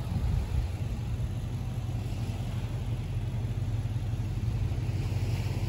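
V8 four-wheel drive's engine running with a steady low rumble, towing a boat trailer through soft beach sand with its wheels sunk deep.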